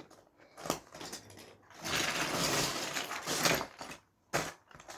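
Handling noise: a rustle lasting about two seconds, with a few sharp clicks and knocks before and after it.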